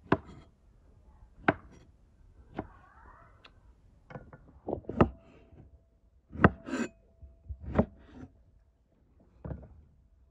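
Steel cleaver chopping through small feijoa fruits onto a wooden cutting board: a series of sharp knocks at irregular intervals, some in quick pairs.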